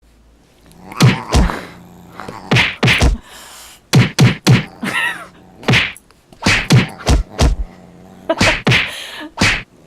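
Dubbed-in fight sound effects: punch and whack hits, well over a dozen, landing in quick runs of two or three, with a short wavering pitched sound about five seconds in.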